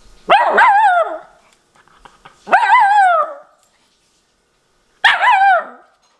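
Miniature schnauzer puppy giving three drawn-out barks, each just under a second long with a pitch that wobbles up and down like talking, about two and a half seconds apart.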